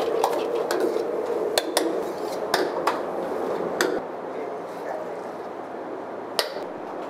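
Metal ladle clanking and scraping against a wok while stir-frying chicken and vegetables, over the steady rush of a gas wok burner. The clanks come every second or so and thin out about four seconds in.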